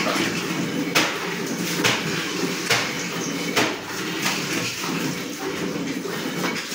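Streams of milk squirting from a cow's teats into a metal pail partly full of milk during hand milking, a short hissing squirt with each squeeze, about one a second.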